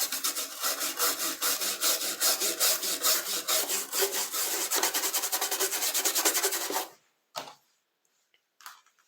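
An old brush scrubbing quickly back and forth over the dirty speaker side of an electronic keyboard, a dense scratchy rasp of several strokes a second. The scrubbing stops about seven seconds in, leaving near silence but for a couple of brief light touches.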